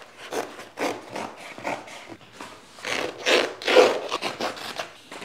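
Scissors cutting through thick 15-ounce cotton canvas: a run of short rasping cuts about two a second, with louder, longer cuts around three to four seconds in.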